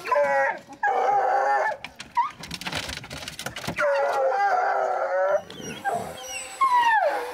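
Bear hounds howling and bawling in excitement as they are let out of a truck's dog box: several long howls, one of them falling in pitch near the end, with a few knocks and clicks between them.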